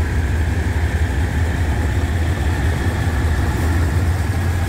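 Diesel locomotive engine running close by, a steady deep drone with a thin steady whine above it, as the locomotive moves slowly past.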